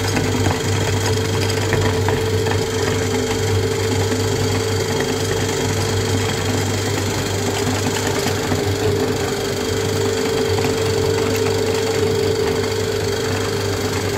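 Motor-driven meat grinder running with a steady hum while its auger crunches and crackles through crumbly polymer clay, which comes out of the cutting plate as powder.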